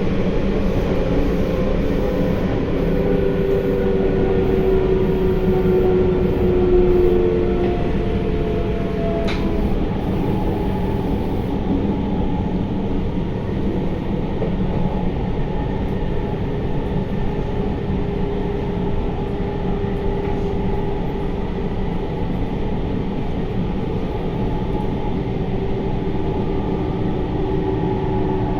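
Sendai Subway Namboku Line 1000N-series train running through the tunnel, heard from inside the car: a steady rumble of wheels and running gear. Over it sits the thin whine of the IGBT-VVVF traction motors, its tones gliding slowly down in pitch during the first several seconds.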